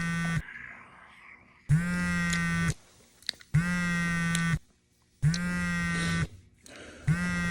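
Mobile phone vibrating with an incoming call: an electric buzz in one-second pulses with short gaps, five in all, the phone rattling on a hard surface.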